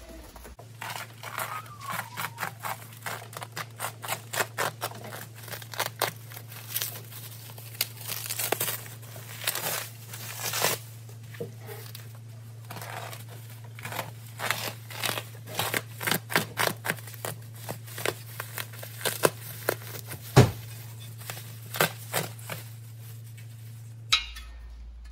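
Plastic stretch wrap and bubble wrap being torn and pulled off a boxed valance panel: a busy run of crinkles, rips and rustles, with one sharp knock about twenty seconds in.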